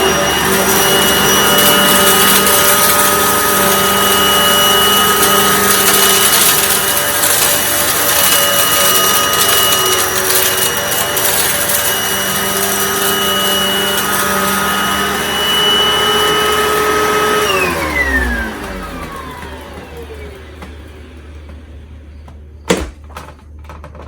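Miele S183 PowerHouse upright vacuum, a rebranded Panasonic with a 12-amp motor, running on carpet with a steady high whine. About 17 seconds in it is switched off and the motor winds down, its pitch falling over a couple of seconds. A single sharp click comes near the end.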